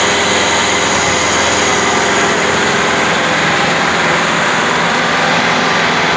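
Kubota MU5501 tractor's four-cylinder diesel engine running steadily, heard up close.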